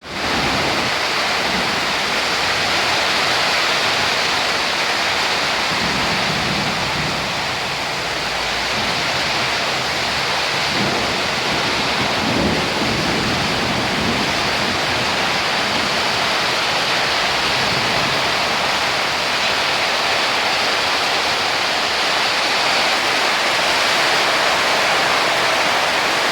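Heavy rain pouring steadily during a summer thunderstorm, with low rolls of thunder rumbling under it twice, about a quarter and about half of the way through.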